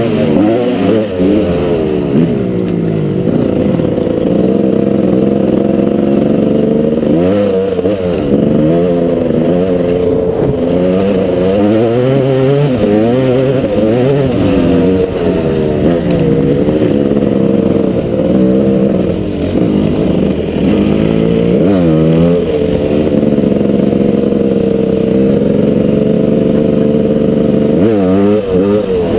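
Gas Gas 300 two-stroke dirt bike engine under way, revving up and dropping back again and again as the throttle is worked and gears are changed, its pitch climbing and falling many times.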